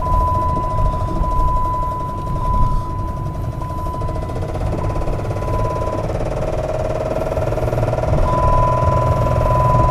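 2007 Dodge Charger's 3.5-litre V6 engine running, with a steady high tone over the engine that drops out about six seconds in and returns a couple of seconds later. The owner says the engine has a top-end knock.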